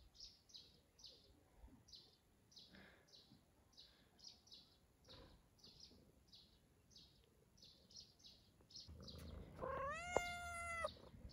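A tabby cat meows once near the end, a single call that rises in pitch and then holds steady. Faint high chirps repeat two or three times a second throughout.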